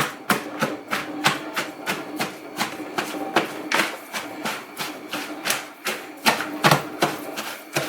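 Pestle pounding shredded green papaya salad in a mortar to mix and bruise it, a steady run of knocks at about three strokes a second.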